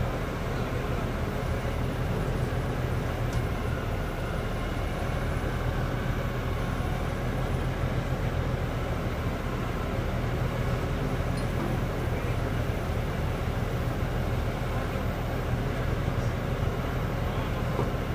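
Truck-mounted water-well drilling rig's engine running steadily, a constant low hum with no change in speed.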